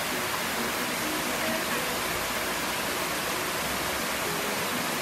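Waterfall cascading over rocks into a pool: a steady, even rush of falling water.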